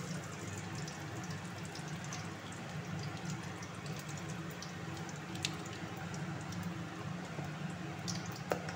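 Whole spices (bay leaves, dried red chillies and cumin seeds) sizzling in hot oil in a steel kadai: a steady sizzle with a few sharp pops, over a low steady hum.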